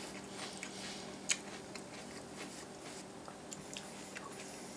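A person chewing a spoonful of Birthday Cake Pebbles, a crisp rice cereal, in milk: soft, scattered crunching, with one sharper click about a second in.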